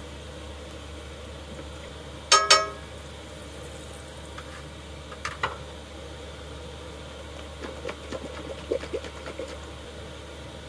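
Two sharp, ringing clinks about two seconds in, a smaller pair a few seconds later, then a run of light knocks and taps, the sounds of cookware and a syrup bottle being handled at a camp stove, over a steady hiss.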